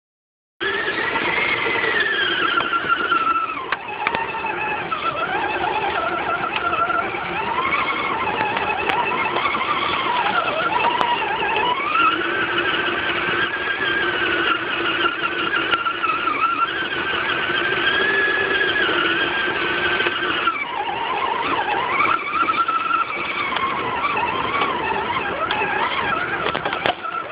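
Electric motor and gear whine of an Axial SCX10 RC scale crawler, heard up close from a camera on the truck, with a continuous whine that rises and falls in pitch as the throttle and load change while it crawls over pavement, dirt and leaves.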